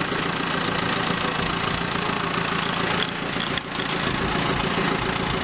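A vehicle's engine running steadily, with a few faint clicks about three seconds in.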